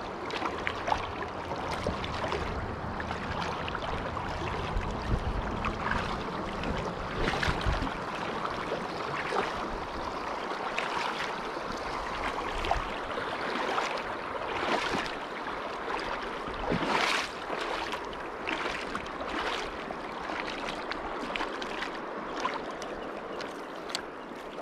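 Shallow river water rushing and burbling over a rocky riffle close by, with frequent brief splashes.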